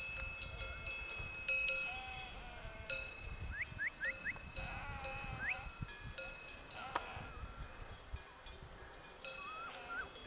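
Bells on a grazing flock of sheep clanking irregularly, each clang ringing on briefly. A sheep bleats about halfway through.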